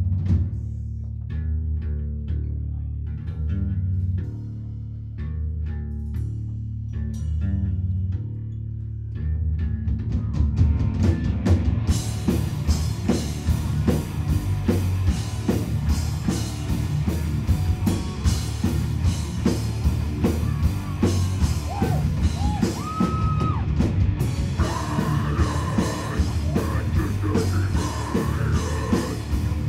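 Live metal band playing: about ten seconds of heavy low drum and bass hits, then the full band comes in around twelve seconds in, with crashing cymbals and loud electric guitar.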